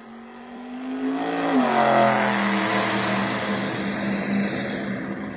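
A recorded car engine revving, rising in pitch over the first second and a half and then holding steady under a rushing noise, played back through a Hopestar H6+ Bluetooth speaker as it starts a test track.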